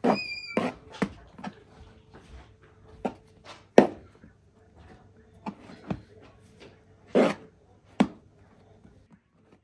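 Serrated knife cutting risen bread dough on a wooden cutting board: scattered knocks of the blade on the board and soft sounds of dough being pulled apart and set down, the sharpest knocks about four seconds in and near the end. A brief high squeak right at the start.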